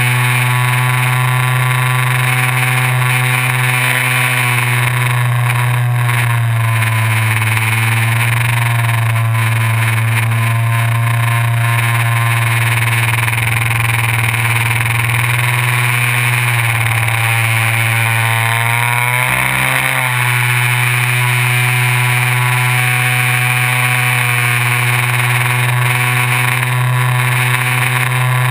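Multiplex FunCub RC plane's electric motor and propeller whining steadily, heard from a camera mounted on the plane. The pitch sags and climbs a few times in the middle, with a brief dip about two-thirds of the way through, before it runs steady again.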